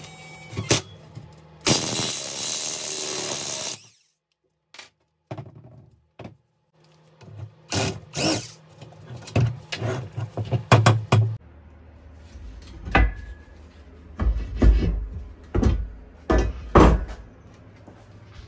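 Workshop tool sounds from taking apart a car subframe: a steady burst of a power tool lasting about two seconds near the start, then a string of sharp metal knocks and clanks.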